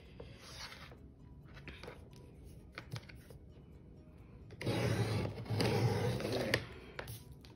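Sliding paper trimmer cutting through cardstock: the cutting head is drawn down the rail in one scraping stroke of about two seconds, starting a little past halfway. Before it come only faint sounds of the paper being handled and lined up.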